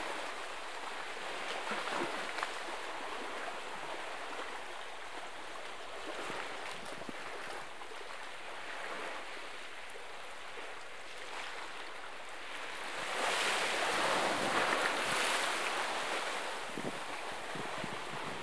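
Small waves washing against a rocky shoreline, with wind. The wash swells louder for a few seconds about two-thirds of the way through.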